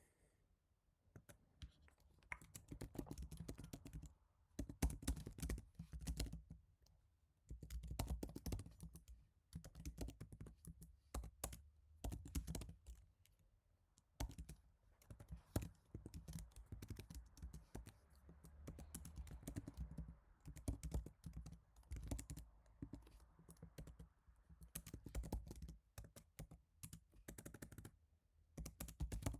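Typing on a Happy Hacking Keyboard Type-S with silenced Topre switches: dense runs of key presses in bursts of a few seconds, broken by short pauses.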